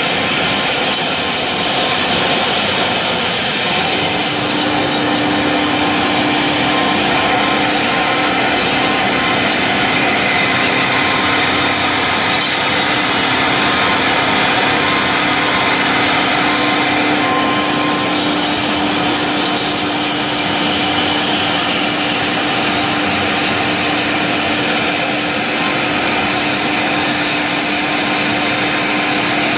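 Double-head CNC router carving a relief pattern into a panel: the spindles cutting under brush dust shoes, with the dust extraction running, a steady loud machine noise. A steady hum joins about four seconds in, and the sharpest hiss eases about two-thirds of the way through.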